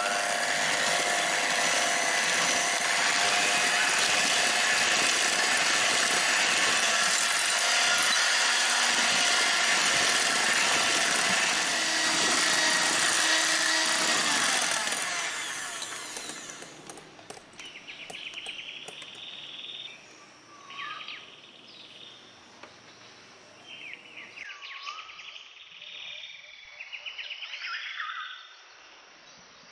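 Electric hand mixer whipping eggs and powdered sugar toward stiff peaks, running steadily and loudly, then fading out about fifteen seconds in. After that, short bird chirps over a quiet background.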